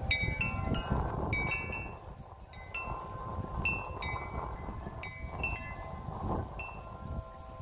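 Wind chimes jingling in the wind, with about a dozen irregular strikes that ring on in clear high tones. Under them is the low rumble of wind on the microphone.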